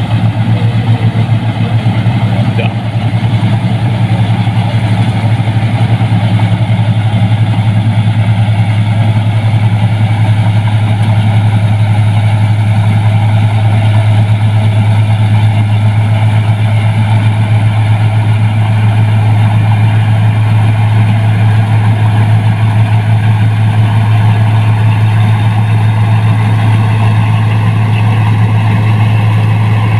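New Holland 1545 combine harvester running under load while harvesting rice: its engine and threshing machinery make a loud, steady low drone that holds even throughout.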